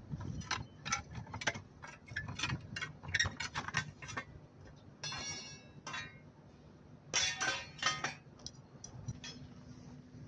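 Steel pry bars clinking and scraping against a truck wheel's steel rim and side ring as the ring is levered off. There are rapid sharp clinks over the first few seconds, a ringing metal clank about five seconds in, and a cluster of louder ringing clanks around seven to eight seconds.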